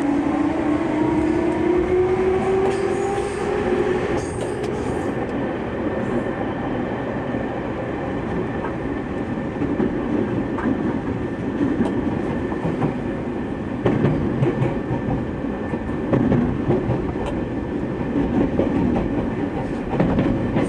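JR East 209 series commuter train accelerating: its MT68 traction motors give a rising whine for the first few seconds. The whine then fades into steady running noise of wheels on rail with occasional clicks from rail joints, heard from inside the car.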